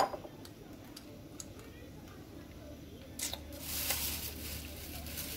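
A raw egg knocked once against the rim of a ceramic mixing bowl, a sharp knock with a short ring, then about three seconds in a second or so of crackling as the shell is pulled apart.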